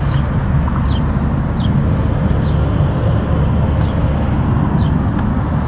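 Steady low rumble of passing road traffic, with a few faint short high chirps.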